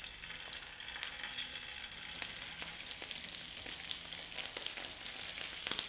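Boiled potato pieces sizzling as they shallow-fry in a little hot oil on a flat tawa griddle: a steady soft hiss with small crackles.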